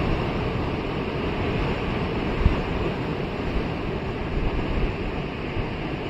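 Surf breaking and washing up a sandy beach, a steady wash of noise, with wind buffeting the microphone in an uneven low rumble and one sharper low thump about two and a half seconds in.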